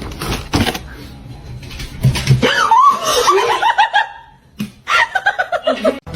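A person laughing hard in two bursts of quick, falling 'ha-ha-ha' pulses, after a few sharp knocks in the first two seconds.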